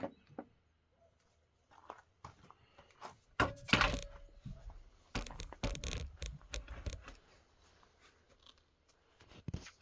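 Handling noises from work on a chainsaw's plastic housing: scattered clicks and scrapes, with louder rustling and scraping about three and a half seconds in and again from about five to seven seconds in.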